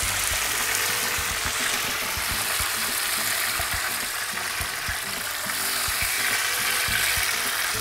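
Battered banana pieces deep-frying in hot oil in a steel pot, a steady sizzle.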